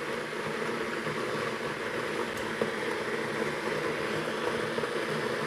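Philips HD9350/90 stainless-steel electric kettle heating water: a steady hiss with a low rumble as the water works toward the boil, with a faint tick or two.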